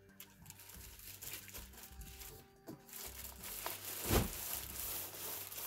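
Plastic wrapping crinkling and rustling against cardboard as a large boxed subwoofer is slid out of its box. There is a single dull thump about four seconds in.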